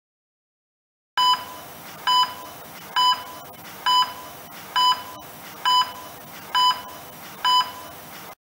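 Heart-rate monitor beep: eight short, identical electronic beeps at a steady pulse of a little under one a second, over a faint hiss. They start about a second in and cut off abruptly near the end.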